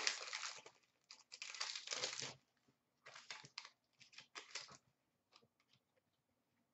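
Foil wrapper of a hockey card pack being torn open and crinkled. There are two longer rustling spells in the first couple of seconds, then a few shorter crackles around three to five seconds in.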